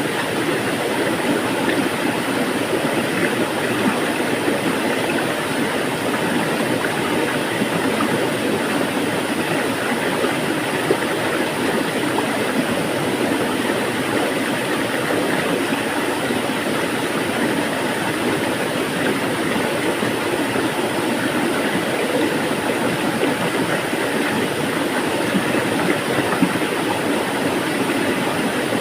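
Water flowing steadily, an even rushing sound that holds without pause.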